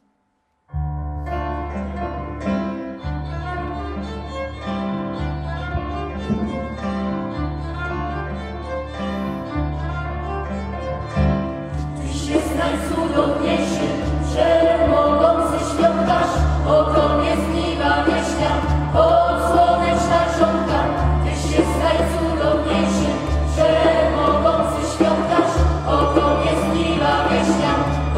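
Mixed church choir singing with violin, electric keyboard and djembe. Violin over sustained keyboard chords opens the piece, and the choir and drum come in about twelve seconds in.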